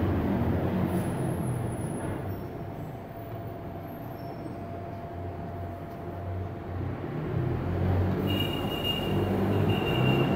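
Low rumble of heavy road traffic, as of a bus or truck running past, swelling again in the last few seconds, with a thin high squeal near the end.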